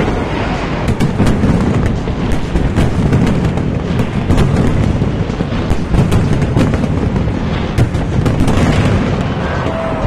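Fireworks display going off: a continuous heavy rumble of booms packed with many sharp cracks and bangs.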